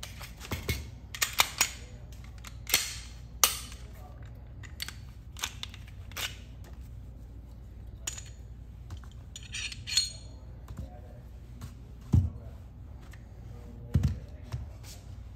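A pistol being field-stripped by hand: a run of sharp metallic clicks and clacks from the slide, slide lock and recoil spring assembly, a brief scraping rattle about ten seconds in, and two duller knocks later as parts are set down on the table.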